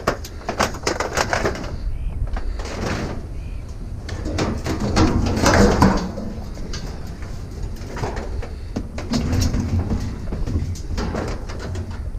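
A heavy tub being shoved along a trailer bed: a series of irregular scrapes and knocks.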